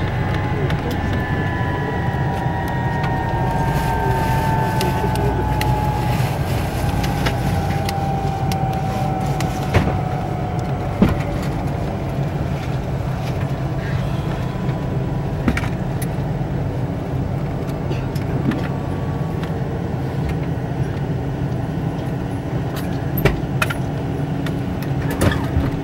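Tupolev Tu-134B cabin as its rear-mounted Soloviev D-30 turbofans wind down: a whine falls slowly in pitch over about ten seconds above a steady low rumble, typical of engine shutdown after arrival. A steady hum remains, with a few scattered clicks and knocks.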